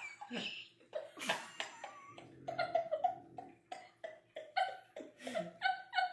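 A woman laughing hard: breathy, wheezing laughter at first, then a run of short, high-pitched bursts of laughter, about three a second, in the second half.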